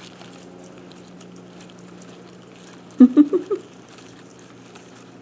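Faint light scratching and patter of a baby blue-tongued skink moving over egg crate in its bucket, over a low steady hum. About three seconds in, a person makes a brief, loud vocal sound lasting about half a second.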